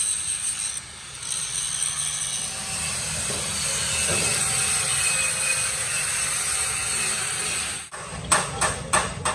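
A power tool running steadily with a high whine, cutting off suddenly near the end, followed by four sharp metallic knocks about a third of a second apart.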